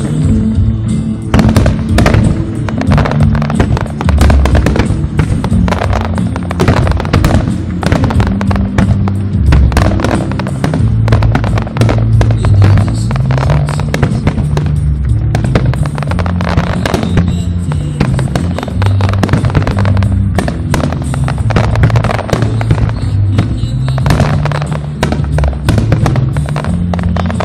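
Aerial fireworks shells bursting in a rapid, continuous barrage of bangs, over music with a low, stepping bass line.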